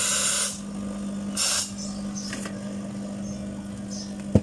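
A small electric appliance motor whirs, then stops about half a second in, leaving a steady low hum. A short hiss comes about a second and a half in, and a sharp knock near the end is the loudest moment.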